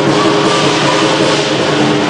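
Chinese lion dance percussion, drum, cymbals and gong, playing loud and without pause as accompaniment to the lion dance.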